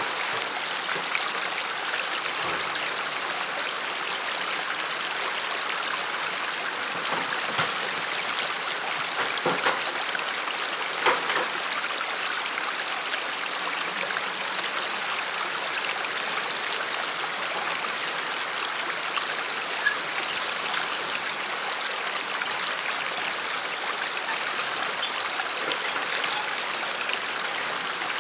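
Shallow rocky creek running steadily over stones, with a few short knocks scattered through, the loudest about eleven seconds in.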